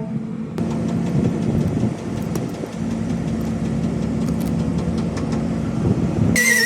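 An engine running steadily with a low hum, with a few light clicks over it.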